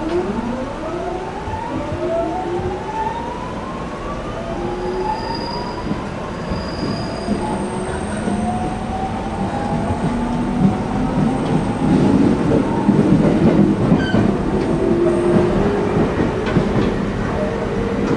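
Interior sound of a JR East 209 series 500-subseries motor car's GTO-thyristor VVVF inverter as the train pulls away and accelerates: several rising whining tones climb together in the first half, then lower stepped tones carry on as wheel and rail noise grows louder.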